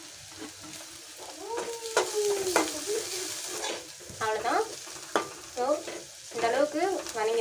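Metal spoon stirring and scraping chopped onions, green chillies and curry leaves sautéing in an aluminium kadai, over a steady sizzle, with a few sharp taps of the spoon against the pan.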